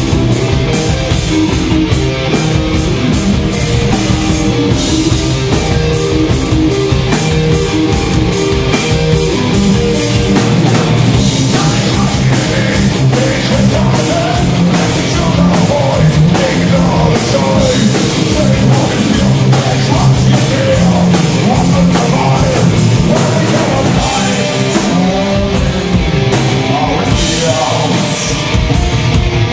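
Groove metal band playing live and loud: distorted electric guitars riffing over a drum kit hammering out rapid, steady beats.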